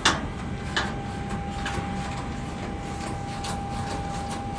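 Sharp knocks and clanks from the green steel-mesh animal cage being fixed in place, the loudest right at the start and another about a second in, with a few fainter ones later. Under them runs a steady background noise, and a thin steady tone comes in about a second in.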